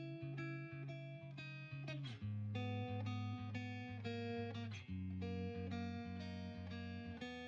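Background music: a strummed and plucked acoustic guitar playing chords that change about two seconds in and again about five seconds in.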